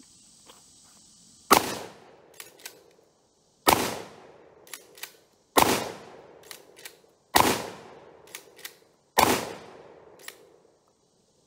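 ATI DF-12 12-gauge shotgun firing five shots of Remington game loads, about two seconds apart, each followed by two quick metallic clicks as the action is pumped back and forward to chamber the next shell. The shots come evenly with no pause for a stoppage, the action cycling through every round.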